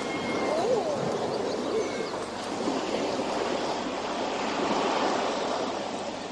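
Sea surf washing on a beach: a steady rushing noise that eases off near the end, with a few faint wavering calls in the first two seconds.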